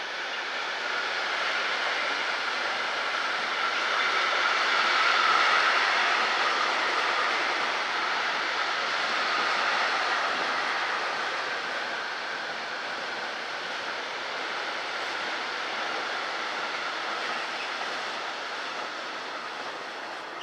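A freight train of tank wagons rolling past on the track: a steady rush of wheels on rail. It is loudest about five seconds in, then eases off and drops near the end as the last wagons go by.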